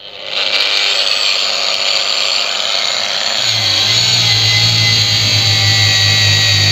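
PROCRAFT PW 1100 ES 125 mm angle grinder switched on at its lowest speed setting and run under load against a steel bar on the workbench. It gives a loud, steady high whine, and a lower drone joins about three and a half seconds in.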